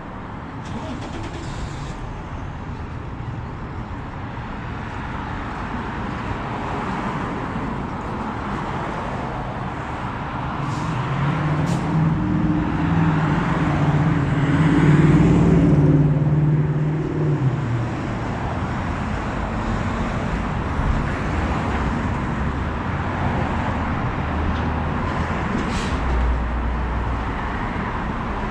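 Steady city street traffic, cars going past. Around the middle one heavier vehicle passes close, its engine hum rising and then fading away.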